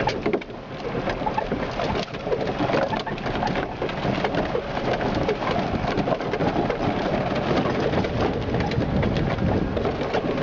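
Golf cart driving over rough yard ground, a steady noisy rumble full of rattles and crackles.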